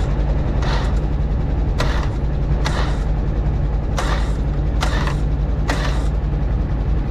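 Off-road side-by-side engine idling, a steady low drone, with a short hissy rasp repeating about once a second over it.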